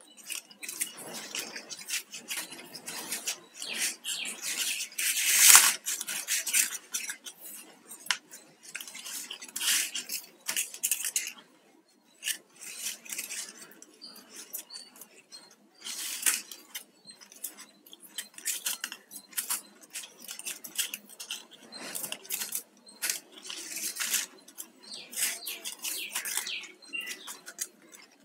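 Flat plastic weaving wires being handled and worked into a knot: irregular scratchy rubbing and light clicks as the strips slide and tap against one another, loudest about five and a half seconds in.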